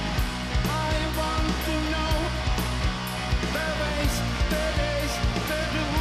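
Progressive rock band playing: a steady drum beat with cymbals over a low bass, and a melodic lead line that bends and glides above it, with no clear vocals.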